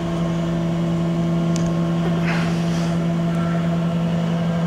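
Jones & Shipman 1305 universal cylindrical grinder running, a steady electric-motor hum with a fixed pitch, with a brief faint scrape of hand handling on the machine about two seconds in.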